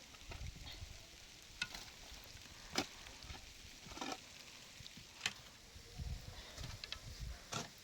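Cooking sounds: a utensil stirring in a pan over faint frying, with sharp clicks about once every second or so.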